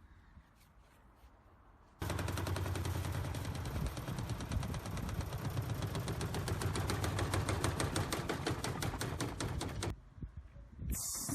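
Washing machine running hard, giving a fast, even knocking rattle of many strikes a second. The knocking starts abruptly after a quiet moment and cuts off shortly before the end.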